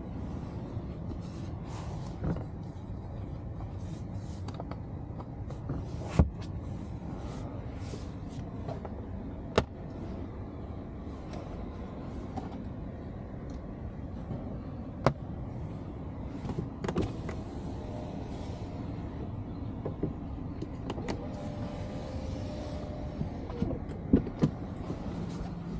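Scattered clicks and knocks of someone shifting about and handling the seats and trim in the back of a parked Peugeot 408, over a steady low hum.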